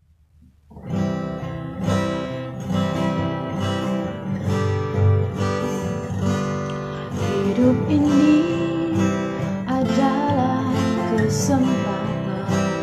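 Music: an Indonesian gospel song opening with strummed acoustic guitar, with a singing voice coming in about halfway through.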